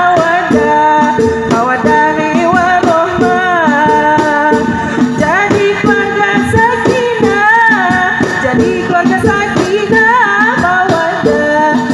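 Live traditional Lampung music: a wavering, ornamented sung melody over small hand gongs and frame drums with a jingling rattle, playing continuously.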